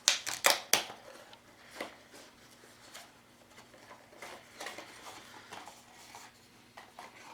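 A utility knife being closed: a quick run of sharp clicks in the first second. Faint scattered taps and light rustles of handling follow.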